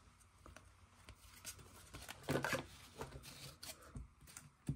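A stack of baseball trading cards being shuffled and sorted by hand: faint, scattered flicks and rustles of card stock.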